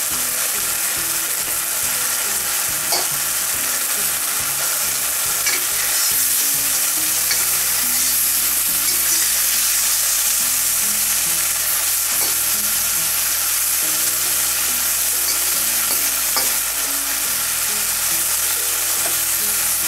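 Chicken and vegetables sizzling steadily in a hot carbon steel wok as they are stirred and turned with a steel wok spatula. A few sharp clacks come from the spatula against the pan.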